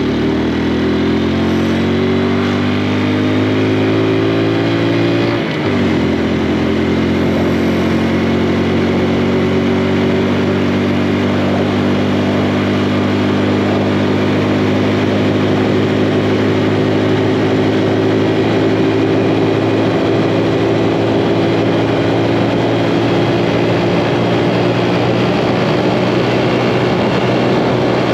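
Honda Super Cub C125's single-cylinder engine pulling away, its pitch rising for about five seconds, then dropping sharply at a gear change and running steadily at cruising speed.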